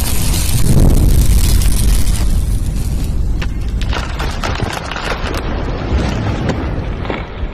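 A loud, deep rumbling boom that thins into scattered crackles and then fades out near the end: an explosion-like sound effect of an edited video intro.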